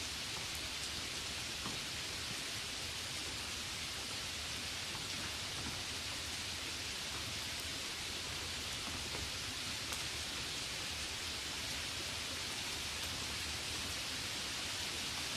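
Steady rain falling, an even hiss with a few single drops heard now and then.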